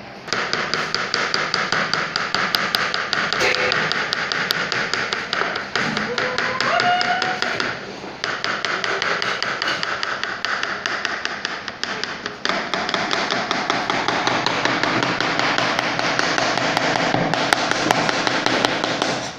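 Kitchen knife chopping gourd into thin slices on a plastic cutting board: rapid, steady taps of the blade striking the board, with two brief pauses.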